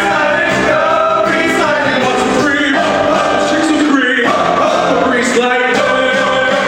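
Men singing a rock and roll number over backing music in a live stage performance.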